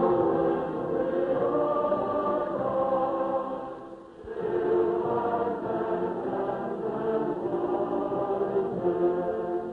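Choir singing in two long held phrases, with a short break about four seconds in.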